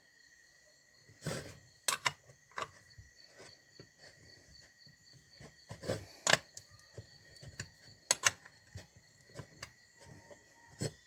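Small metal parts clicking and knocking irregularly as screws are fitted loosely into a motorcycle clutch basket, with sharper knocks about six and eight seconds in.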